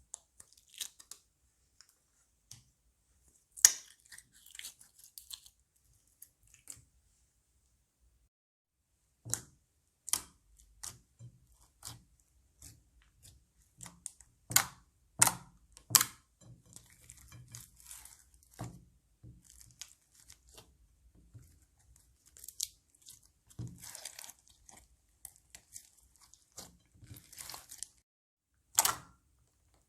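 Crunchy slime being squeezed and worked by hand, giving irregular sharp pops and crackles, with a short quiet pause about a quarter of the way in.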